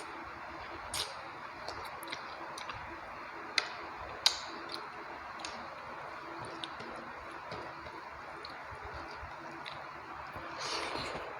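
Close-miked eating sounds from a mouthful of rice and chicken curry: scattered wet mouth clicks and smacks while chewing, with two sharper clicks a little over a third of the way in and a brief rustling smear near the end.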